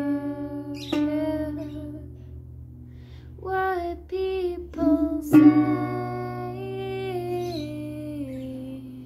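Acoustic guitar chords strummed and left to ring, with a woman singing a melody over them. Three strong strums: at the start, about a second in, and just past halfway.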